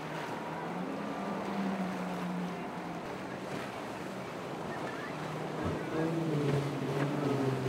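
Outboard-powered motorboats running fast through choppy water: a steady engine drone over splashing water and wind on the microphone. About six seconds in the sound grows louder as a second, higher engine note joins.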